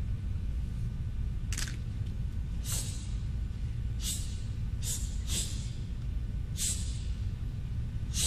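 About seven sharp, hissing swishes, one with each kick and strike of a taekwondo demonstrator's techniques, over a steady low rumble of room noise.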